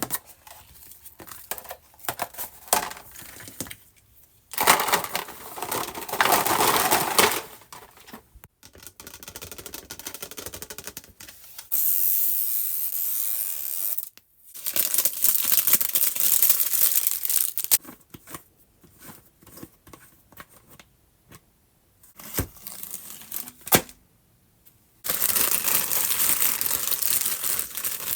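Toy packaging being opened by hand: several bursts of plastic and paper tearing and crinkling lasting a few seconds each, with small clicks and taps in the quieter gaps between.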